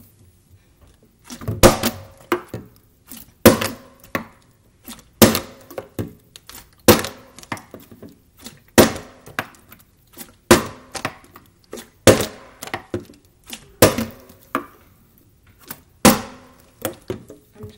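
Partly filled plastic water bottles thudding down on a stone desktop as they are flipped again and again. About nine landings, one every couple of seconds, each followed by a lighter knock.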